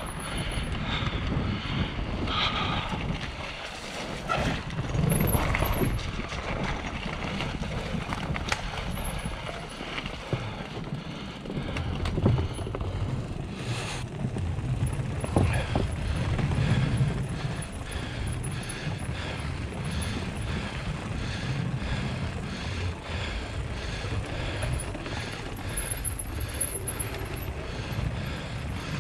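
Mountain bike tyres rumbling and knocking over the slats of a wooden boardwalk, with the bike rattling and wind buffeting the microphone. In the second half the knocks fall into an even run as the wheels cross board after board.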